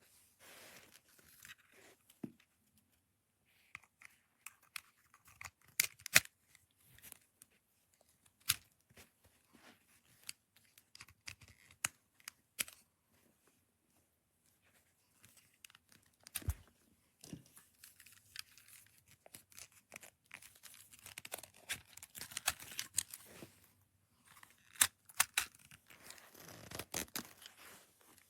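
Packaging and small plastic items being handled: rustling and tearing with scattered sharp clicks and taps, the loudest clicks about six seconds in and near the end.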